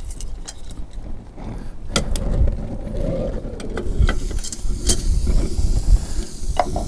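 Wind rumbling on the microphone, with a few sharp clicks and knocks.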